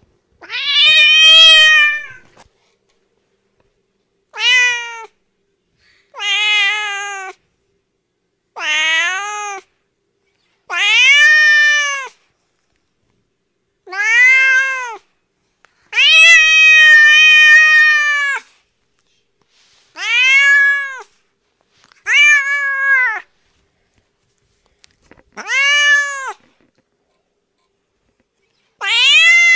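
Domestic cat meowing about eleven times. The long meows come a second or two apart, and each rises and then falls in pitch.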